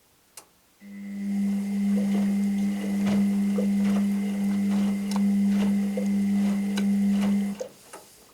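Washing machine running a stretch of its wash cycle: the motor starts with a steady hum about a second in, with light clicks and knocks from the tumbling load, then stops near the end.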